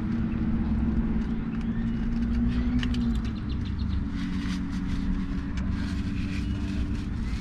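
Steady low engine hum and rumble of vehicles, heard from inside a car; the hum shifts in pitch about three seconds in. A few light clicks sound over it.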